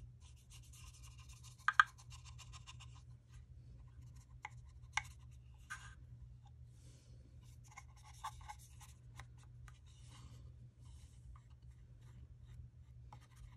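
Water brush and crayon rubbing into the corners of a paper-lined wooden box: faint, scratchy brushing strokes. There are a few light sharp taps, two close together near two seconds in and one about five seconds in, over a low steady hum.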